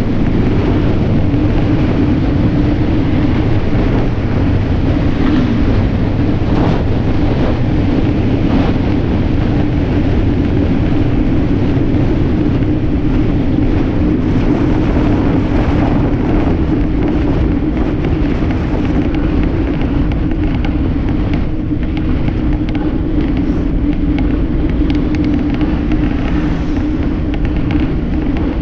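Wind rushing over an action camera's microphone on a bicycle coasting fast downhill, with a steady hum from the tyres rolling on asphalt and a few light knocks.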